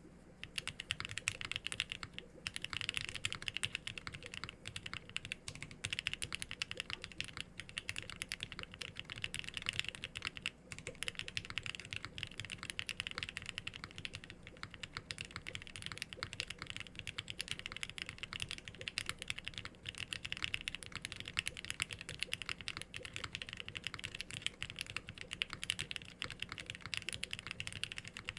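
Continuous, rapid typing on a custom TGR Jane v2 ME mechanical keyboard with H1 switches that are lubed with 205g0 and filmed, in an O-ring-mounted polycarbonate plate under GMK keycaps: a dense run of keystroke clicks and thocks.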